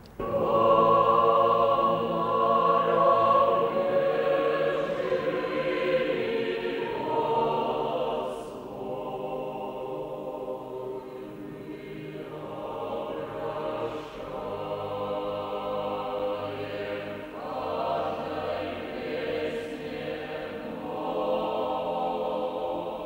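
Slow choral music, with long held chords that shift every few seconds; it cuts in abruptly at the start.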